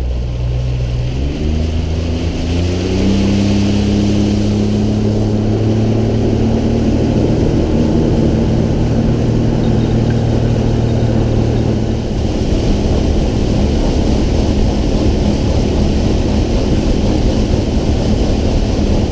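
An engine running loudly, rising in pitch from about one to three seconds in, then holding a steady speed with a noisy rush behind it.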